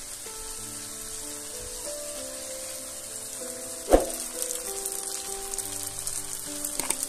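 Sliced onions and tomatoes frying in oil in a pan, a steady sizzle. There is one sharp click about four seconds in, and a few lighter ticks after it.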